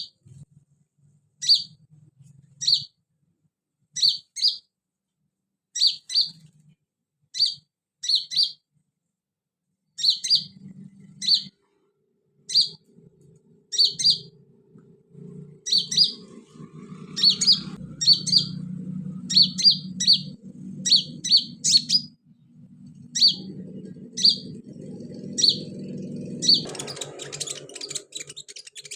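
Kolibri ninja sunbird chirping: short, sharp doubled chirps repeated about once a second, coming faster later on. A low hum joins partway through, and a rushing hiss rises near the end.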